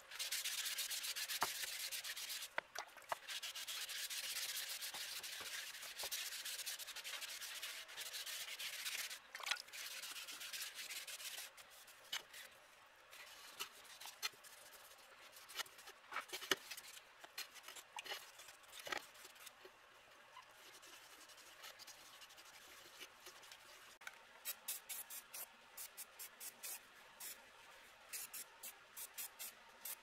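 A part being rubbed down by hand: a steady scratchy rubbing for the first eleven seconds or so, then scattered light clicks and taps. Near the end comes a quick run of short, sharp strokes, about two a second.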